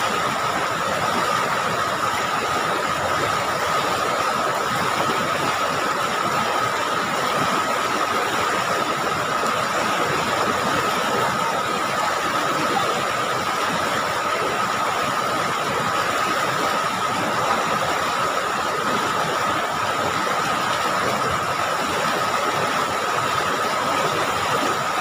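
River rapids rushing over rocks: a steady, even noise, with a steady high thin tone running through it.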